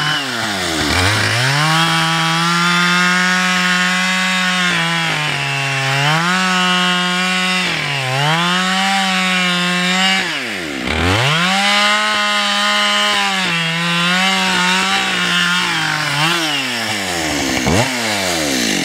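Two-stroke chainsaw cutting through a log at high revs, its engine pitch sagging and recovering as the bar bites into the wood. The engine drops briefly toward idle and revs back up about a second in, near eleven seconds in, and again near the end.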